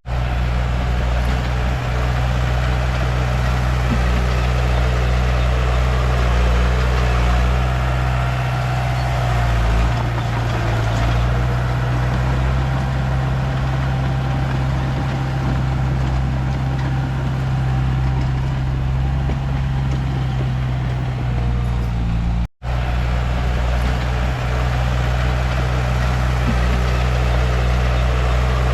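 Diesel engine of a Komatsu D31P bulldozer running steadily with a deep, even note. The sound breaks off for an instant about three quarters of the way through, then carries on.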